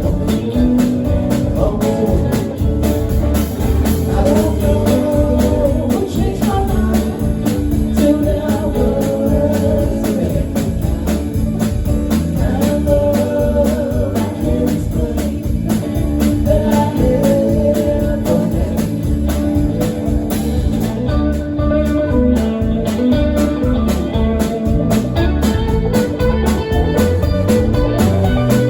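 A live band playing a song with a singer, guitar and drum kit, loud and steady throughout.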